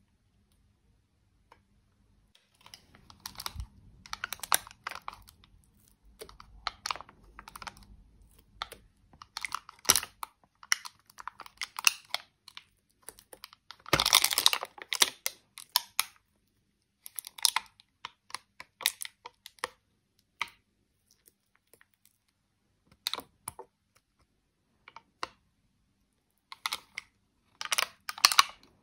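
Short clicks, taps and scrapes of plastic makeup being handled, including a thin tool scraping pressed eyeshadow out of the pans of a pink plastic toy palette. They come in brief bursts with quiet gaps, with a louder cluster of clicks about halfway through.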